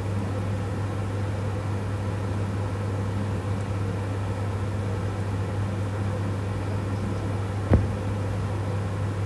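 Steady low hum with an even hiss, like a fan or appliance running, and a single short knock about three quarters of the way through.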